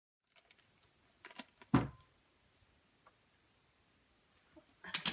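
Mostly quiet room with a few light clicks, one louder knock about two seconds in, and a quick run of clicks and knocks near the end.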